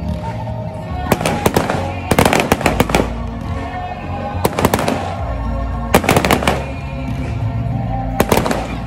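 Fireworks display: aerial shells bursting in quick volleys of sharp bangs, about five volleys a second or two apart, with music playing throughout.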